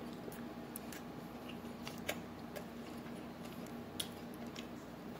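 Faint mouth clicks and wet smacks of a man chewing a mouthful of taco with his mouth closed, a few scattered sharp ticks over a faint steady hum.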